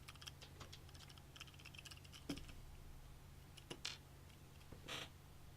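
Faint scattered clicks and light taps of small hardware being handled during a PC build, with one sharper knock about two seconds in and a short rustle near the end, over a low steady hum.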